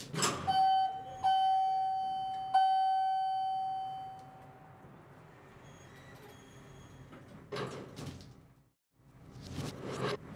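Elevator arrival chime: one bell-like tone struck three times in quick succession, the last strike fading out over a couple of seconds. Later come two short rushes of noise.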